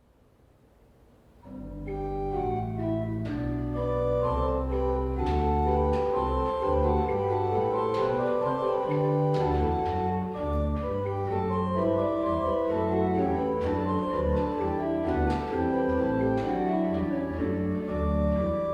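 Organ music playing sustained chords over low bass notes. It enters about a second and a half in and holds steady after that.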